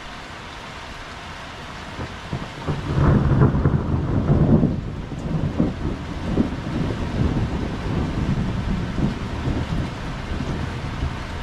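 Heavy rain falling steadily. About two seconds in, a deep roll of thunder swells in, is loudest a second or two later, then rumbles on unevenly under the rain.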